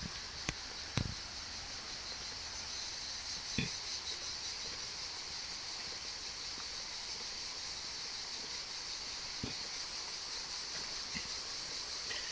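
Steady high-pitched chorus of insects, such as cicadas or crickets, in summer woodland, with a few short knocks or snaps in the first few seconds.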